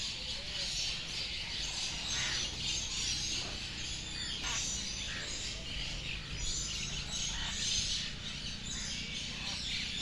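Many birds chirping and calling at once in a dense, continuous chorus, with a low rumble underneath.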